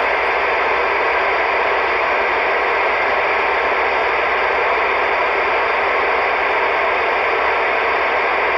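CB radio static: a steady, loud hiss through the radio's audio with no voice on the channel.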